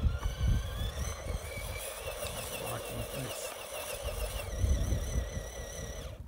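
Electric motor and gear whine of an RC rock crawler working over rock, rising in pitch over the first two seconds, then wavering as the throttle is worked, and cutting off sharply at the end. Wind gusts rumble on the microphone throughout.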